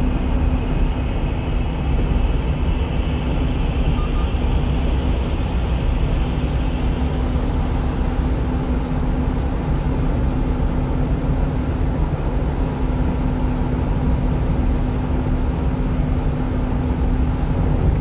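Steady road and engine noise heard inside a 1-ton refrigerated box truck's cab at highway speed, with tyre hiss from the wet road surface under a constant low hum.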